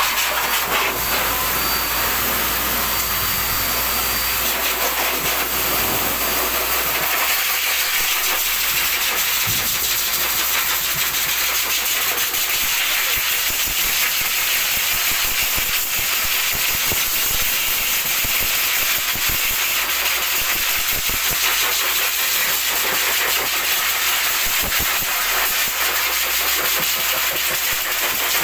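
Pet grooming blow dryer blasting a steady hiss of air over a wet dog's coat.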